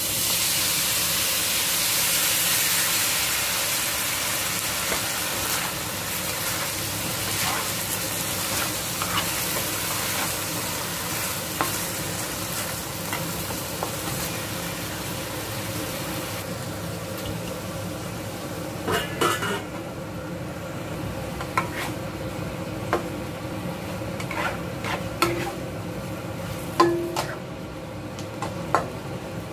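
Stir-frying loofah and mushrooms in a stainless-steel wok: sauce hitting the hot pan sets off a loud sizzle that eases off over the first half. Through the second half a spatula scrapes and knocks against the wok as the food is tossed.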